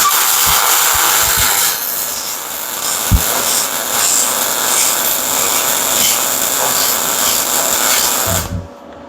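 Electric welder laying a weld bead on a steel car frame: a steady crackling hiss for about eight and a half seconds that cuts off suddenly near the end.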